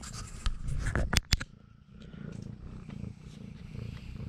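Mother cat purring with a low, steady rumble while nursing her kittens. A few sharp knocks come about a second in.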